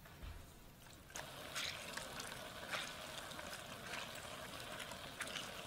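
Juice from hand-squeezed mandarin oranges trickling faintly through a wire mesh strainer into a stainless steel skillet, starting about a second in, with a few brief drips.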